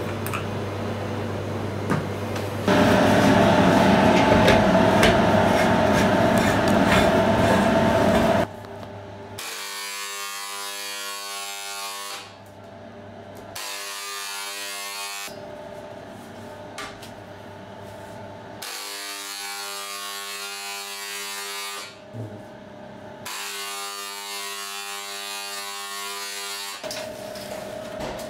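Handheld electric spray gun buzzing in runs of a few seconds with short breaks between, spraying egg wash over trays of croissants. Before the buzzing starts, several seconds of a louder steady noise.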